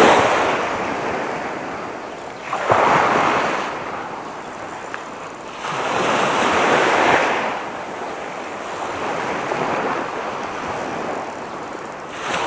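Small waves breaking and washing up a sandy shore, surging in four times, about every three seconds.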